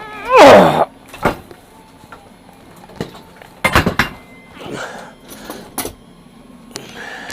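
A man's loud cry falling in pitch, then a series of knocks and clatters, the heaviest about four seconds in, as a wheeled stool tips back and he crashes into the side of the shed.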